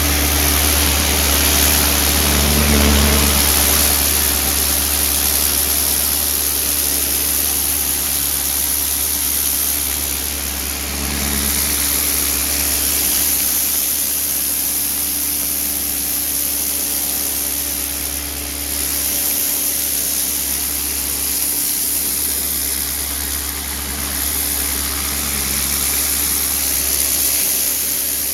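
Bosch UniversalAquatak 135 electric pressure washer running: a steady motor and pump hum under the hiss of the high-pressure water jet, its level dipping briefly a few times.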